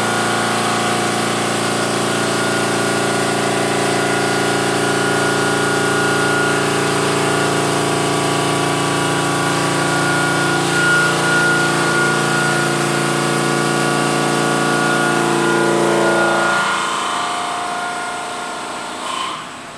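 Park Industries Saber 5-axis CNC bridge saw cutting a stone countertop slab, its blade running wet: a steady machine whine over a hiss. Near the end the sound drops lower and quieter.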